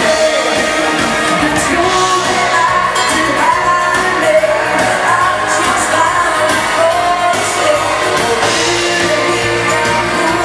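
A live dance band playing a bugg tune, with a lead vocalist singing over the band.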